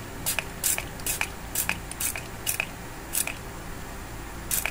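Aerosol cleaner sprayed in short hissing bursts, about two a second, onto an AMD CPU and its AM3+ socket, with a pause before a last burst near the end.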